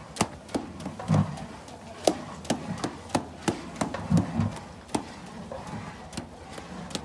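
Flat metal spatula blade chopping down through cooked leafy greens in a large metal pot, striking the pot in sharp, irregular knocks about three a second, with a few duller thumps.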